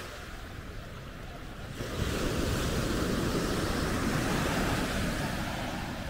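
Surf washing and breaking on a sandy beach, a steady rush of water that grows abruptly louder about two seconds in.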